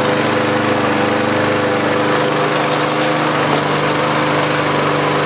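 Briggs & Stratton Classic single-cylinder lawnmower engine running steadily at a good working speed, its governor spring freshly tightened to raise the engine speed. It is running without its air filter.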